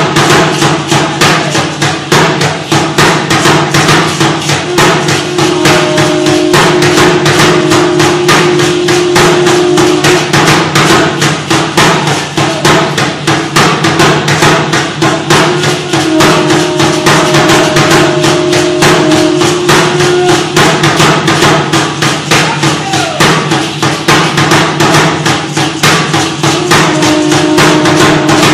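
Aztec dance music: a huehuetl drum beaten in a fast, steady rhythm together with the dancers' ankle rattles shaking, and held notes that come and go over it.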